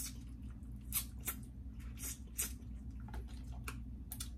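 Close-up wet eating sounds of a person chewing sauce-drenched crab and shrimp: an irregular string of squishy mouth smacks and clicks.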